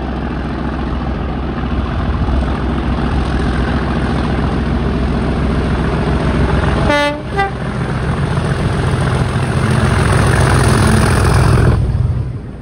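Class 37 diesel locomotive under full power hauling coaches, its engine thrash building as it approaches. A short two-tone horn blast, low note then high, sounds about seven seconds in. The engine is loudest as the locomotive passes underneath, then cuts off abruptly near the end.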